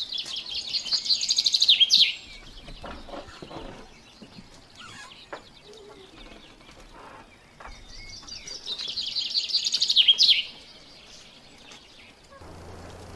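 A bird singing: two loud phrases of rapid, high-pitched repeated notes about eight seconds apart, each building in loudness for about two seconds and ending in a quick downward sweep. A low steady hum starts near the end.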